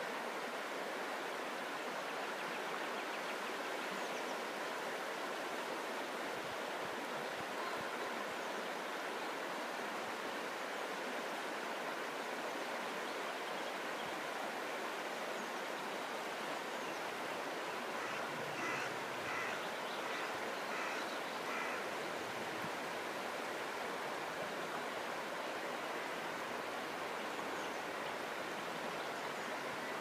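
Shallow river flowing steadily around stepping stones, a constant rushing of water. About two-thirds of the way in, a bird calls a quick run of short, high notes.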